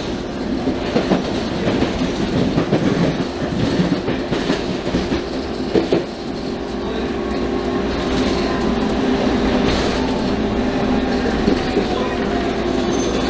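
UTDC H6 subway car running along the track, heard from inside the car: wheels rumbling and clattering over rail joints. From about six seconds in, a steady hum sets in over the running noise.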